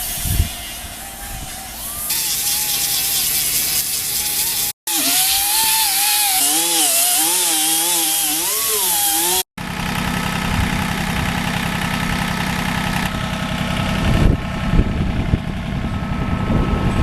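Electric power sander running against a fibreglass patch on a wooden boat hull, in three short clips split by cuts. In the middle clip the motor's pitch wavers up and down as it is pressed and moved. In the last clip it runs at a steady pitch.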